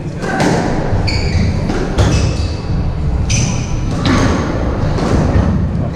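Squash rally: about six sharp smacks of the ball off rackets and walls, echoing in the enclosed court, with short squeaks of court shoes on the wooden floor between the hits.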